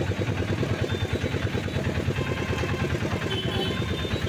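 Small engine of a motorised van running steadily while it carries its riders, with an even, rapid pulse of firing strokes.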